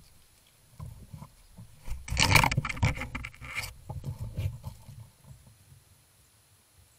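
Rustling and scraping of an animal moving among dry corn stalks and leaves. The sound is loudest for about a second and a half starting two seconds in, with fainter rustles after it.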